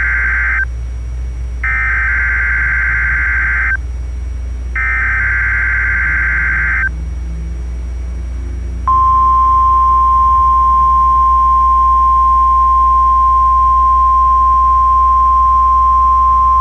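NOAA Weather Radio Required Weekly Test alert: the tail of the first SAME header data burst, then the second and third bursts, each a buzzy burst of data tones about two seconds long. After a pause of about two seconds, the steady 1050 Hz weather radio warning alarm tone begins and holds, over a low radio hum.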